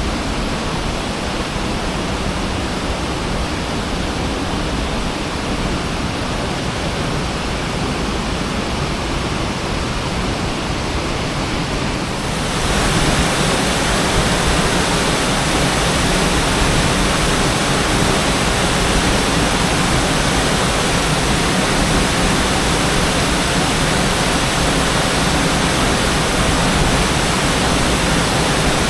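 Waterfall: a steady rush of falling water, which gets louder and brighter about twelve seconds in.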